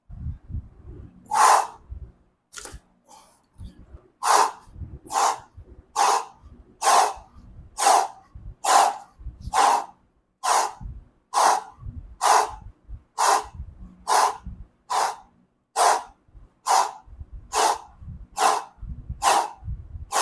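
A man's short, hard exhalations, one with each push-up, at a steady pace of about one a second, some twenty in a row.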